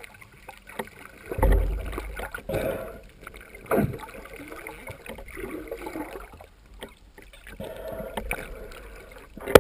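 Muffled underwater noise heard through a GoPro's waterproof housing, with low rumbles and several sharp knocks as the camera is handled and bumped during the dive.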